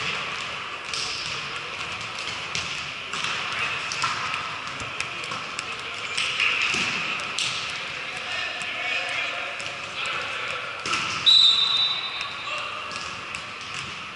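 Indoor volleyball rally in a reverberant gym: players calling out, sharp knocks of the ball being hit and bouncing, and shoes on the court. About 11 seconds in there is a brief high-pitched squeal, the loudest sound.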